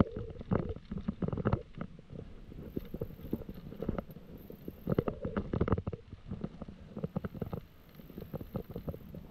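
Mountain bike rattling and knocking over a rough dirt trail. Dense runs of short knocks come at the start and again about five seconds in, and thin out near the end as the trail smooths.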